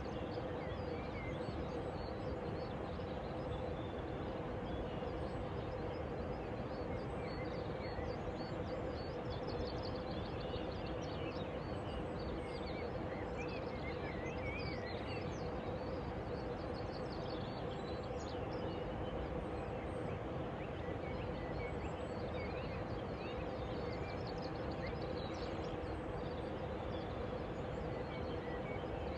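Steady outdoor ambience: a constant rushing noise with a steady low hum underneath, and small birds chirping on and off throughout.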